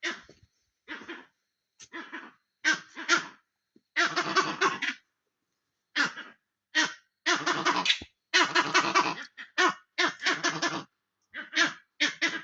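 Monkeys giving alarm calls at a predator, taken for a leopard: loud, harsh, laugh-like chattering in repeated bursts. Some bursts run into rapid stuttering bouts of about a second each, near the middle and again in the latter half.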